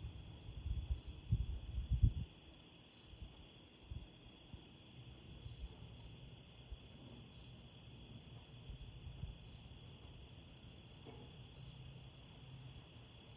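Wind gusting against the microphone, a low rumble that is strongest for the first two seconds and then eases. Crickets chirp through it in short high pulses about once a second.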